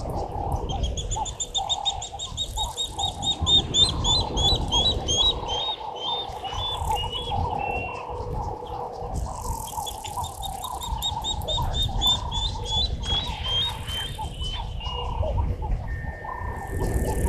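Wild birds calling outdoors: a rapid run of repeated high notes that lasts several seconds, pauses, then starts again, over lower wavering calls and a steady low rumble.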